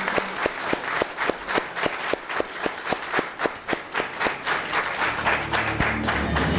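Audience applauding, many hands clapping with the claps falling into an even beat of about five a second. Music comes in underneath about five seconds in.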